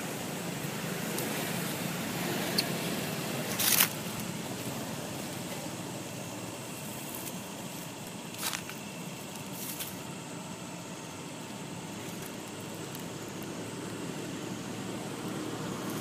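Steady outdoor background noise with a few brief crackling rustles, the loudest a little under four seconds in and another about eight and a half seconds in.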